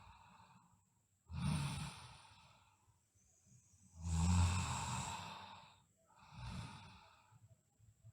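A sleeping girl breathing heavily and snoring: three loud breaths about two and a half seconds apart, the loudest one, about four seconds in, carrying a low rumble.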